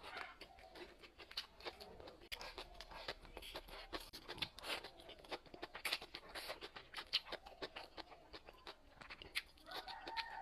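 Close-miked mukbang eating sounds: quick, irregular mouth clicks and smacks of chewing spicy food. A short voiced sound comes near the end.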